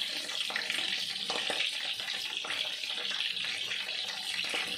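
Battered squid rings and French fries deep-frying in hot oil, a steady sizzle, with a few light clicks as chopsticks and a fork turn the rings in the pan.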